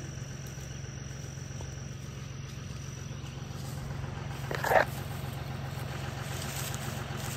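John Deere tractor engine idling steadily, with one brief crunch about two-thirds of the way through.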